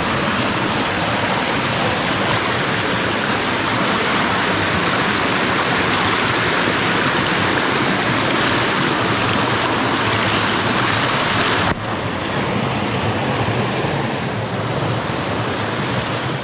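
Small waterfall pouring into a pool: a steady, loud rush of falling water. About twelve seconds in it steps down abruptly to a slightly quieter, duller rush.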